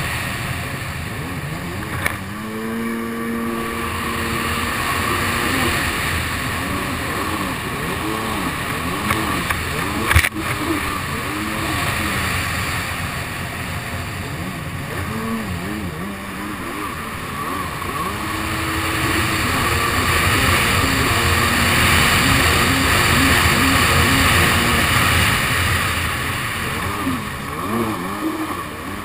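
Kawasaki SX-R 800 stand-up jet ski's two-stroke twin, fitted with a TBM dry pipe and Novi carburetors, running hard and rising and falling in pitch as the throttle is worked, over the rush of water spray. A sharp knock about ten seconds in, and a smaller one about two seconds in.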